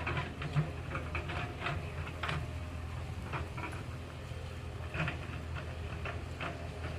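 Diesel engine of an earthmoving machine running steadily, with scattered short clicks and clatters over the top.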